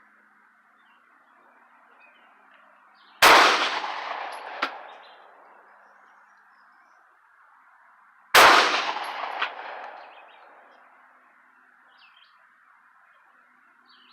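Two shots from a Hi-Point 995 9mm carbine, about five seconds apart, each with a long echoing decay, and a short sharp click about a second after each shot.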